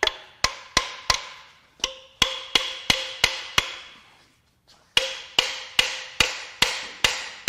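Repeated metal hammer blows on the exposed bottom end of a blown engine, driving at a jammed connecting rod. There are about three blows a second, each with a short metallic ring, in two runs split by a pause of about a second.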